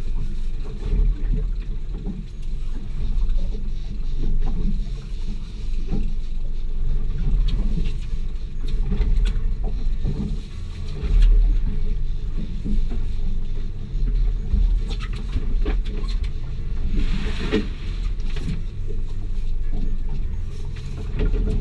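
Steady low rumble aboard a small boat at sea, with scattered knocks and clatter on board.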